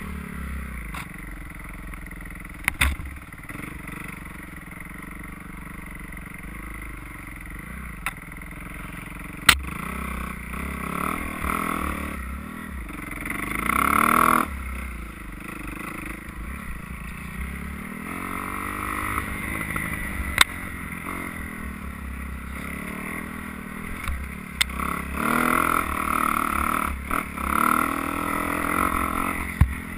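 Dirt bike engine revving up and down under load on steep trail climbs, loudest about halfway through. A few sharp knocks cut through it.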